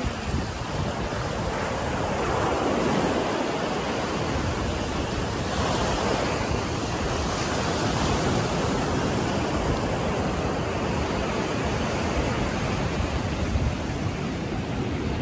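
Ocean surf breaking and washing up the sand at the shoreline: a steady rush of water that swells in a few broad surges as waves come in.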